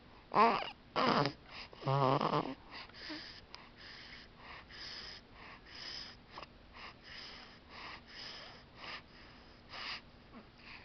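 Young baby making small squeaky coos and grunts, then breathing in quick snuffly, wheezy puffs about twice a second.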